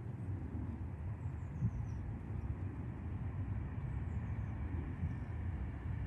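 Low, steady rumble of a distant passing vehicle, slowly building, with a small bird giving faint high, descending chirps a few times.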